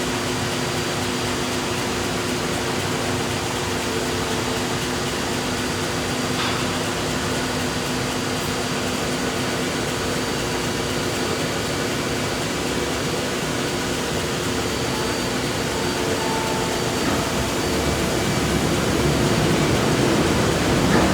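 Horizontal bandsaw mill running steadily, a constant machine hum with a rushing noise over it, growing a little louder near the end.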